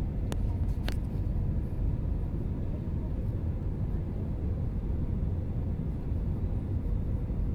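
Cabin noise of a jet airliner descending on approach: a steady low rumble of engines and airflow with a faint steady hum. Two short clicks come in the first second.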